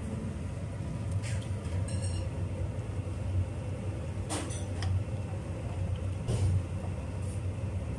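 A steady low rumble under a pot of rice boiling hard in broth, stirred with a wooden spoon that knocks lightly against the pot about three times.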